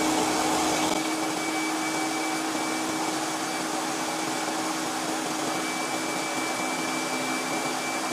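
Electric stand mixer running steadily with its whisk attachment beating cake batter: a motor whine over an even whirring hum, dropping slightly in level about a second in.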